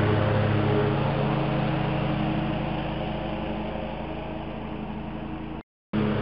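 Toro zero-turn riding mower's engine running steadily while mowing, fading as the mower moves away. About five and a half seconds in the sound cuts off abruptly, then returns loud just before the end.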